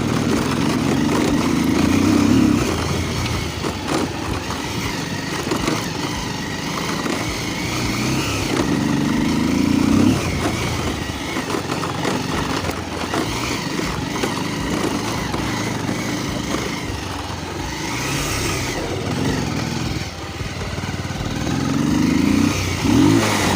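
Motorcycle engine under way, revving up with rising pitch and easing off again several times as the rider accelerates over a rough road.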